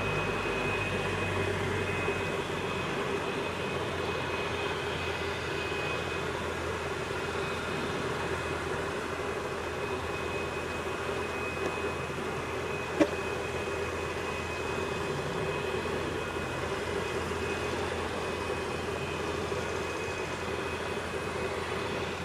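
Bell 412 helicopter running on the ground with its main rotor turning: a steady high turbine whine over a constant rushing drone from the twin turboshaft engines and rotor. A single sharp click is heard about halfway through.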